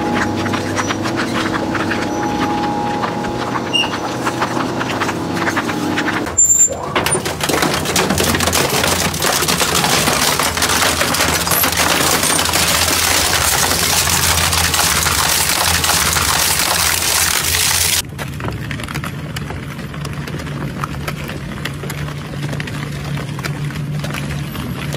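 Twin-shaft industrial shredder grinding and crunching material between its hooked cutter blades: a loud, dense grinding noise full of cracks and snaps. It changes abruptly twice, growing louder and brighter about six seconds in and dropping back near the end.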